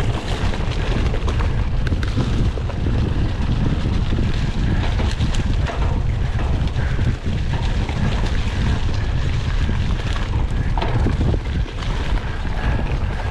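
Wind buffeting the microphone of a rider's camera on a mountain bike at speed, a steady deep rumble. Scattered knocks and rattles run through it.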